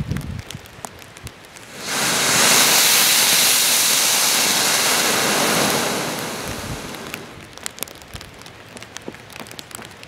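Homemade rocket candy (potassium nitrate and sugar) motor in a steel EMT casing with a cement nozzle, lit by fuse: about two seconds in it ignites with a loud, steady rushing hiss that holds for about four seconds, then dies away over a second or so as the propellant burns out. Rain patters throughout.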